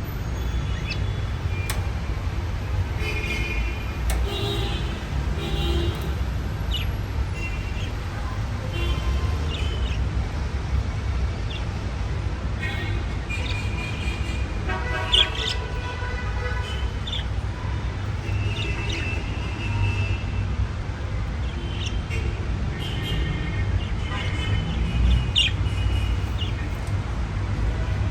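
Budgerigars chattering and warbling in short, scattered chirps over a steady low rumble.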